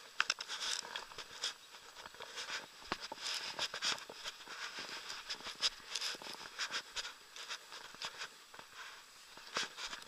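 Irregular rustling with many sharp little clicks: handling noise from the camera being picked up and moved about, brushing against grass and the angler's arm.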